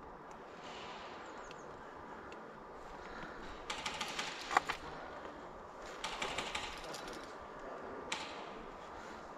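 Airsoft guns firing in bursts: two volleys of rapid clicks, each about a second long, in the middle, and a single sharp click near the end.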